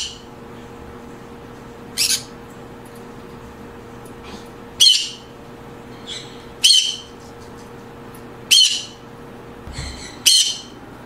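Green-cheeked conures calling: five short, harsh screeching calls, about one every two seconds, over a faint steady hum that stops near the end.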